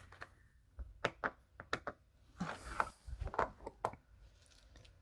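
Small jewelry pieces being handled: a series of light clicks and taps, with a brief rustle in the middle, dying down after about four seconds.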